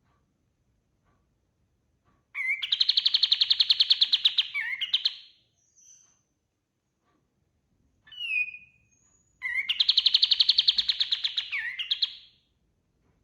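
Kapas tembak songbird singing two long phrases. Each phrase is a fast, even trill of about a dozen notes a second that opens on a rising note and ends on a falling slur. A couple of short whistled notes come between the two phrases.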